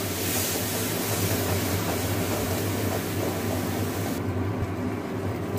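Spice paste frying in oil in an aluminium kadai, a steady sizzling hiss with a low hum under it; the highest part of the hiss drops away about four seconds in.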